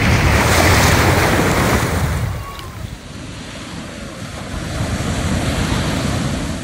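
Surf breaking and washing up a sandy beach, with wind rumbling on the microphone. It is loudest in the first two seconds, eases off, then another wave swells in and fades near the end.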